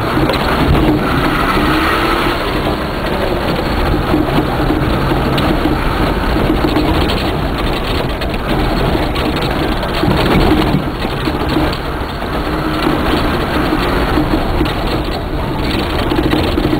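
Inside the cabin of a Mercedes 4x4 driven over a rough dirt track, the engine runs steadily under load, its note wavering, with knocks and rattles from the rough ground.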